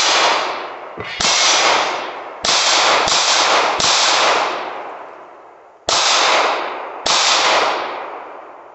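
Handgun shots fired at an outdoor range: about seven shots at uneven spacing (at the start, then around 1, 2.5, 3, 4, 6 and 7 seconds in), each leaving a long echo that dies away over a second or more.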